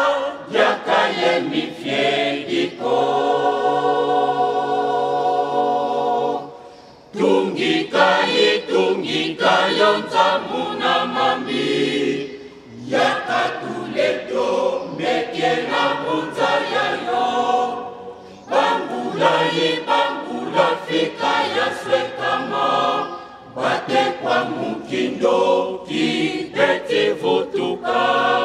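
Kimbanguist church choir of men and women singing a hymn in phrases with short breaks, holding one long chord about three to six seconds in.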